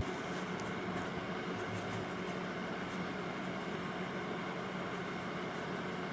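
Steady hum and hiss of a vehicle running, heard from inside the cabin, with a low steady drone throughout.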